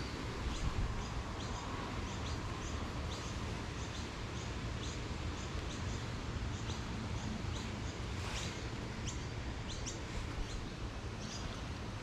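A small bird chirping over and over, short high chirps about twice a second, over a steady low rumble of outdoor background noise.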